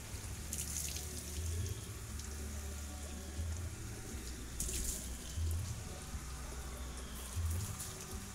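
Water running and splashing during a hand wash of a motorcycle, with two short splashes about a second in and about five seconds in. A low hum runs underneath, swelling about every two seconds.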